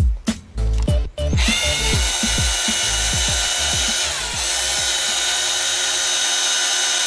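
Handheld drill motor starting about a second and a half in and whirring steadily as it spins a pair of wires held in its chuck, twisting them together. Its pitch sags briefly about four seconds in. Background music plays under it.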